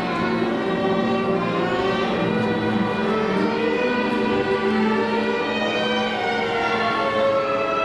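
Orchestral ballet music with strings to the fore, playing long held notes at a steady level.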